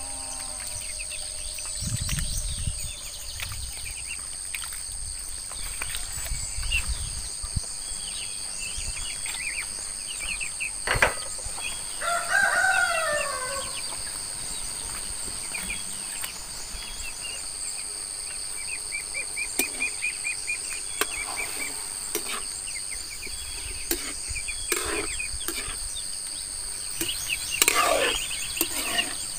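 Countryside ambience: a steady high-pitched insect drone throughout, with a rooster crowing once about twelve seconds in and scattered short bird calls and clicks.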